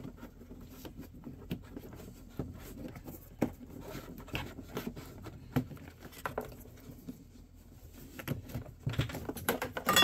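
Wiring harness and its plastic connectors being fed through a hole in a plastic dash panel: scattered light clicks, taps and rustles, growing busier and louder near the end.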